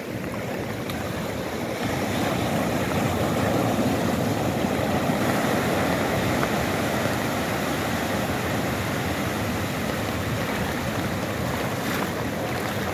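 Sea surf breaking and washing up onto a sandy beach: a steady rushing of water that grows louder about two seconds in.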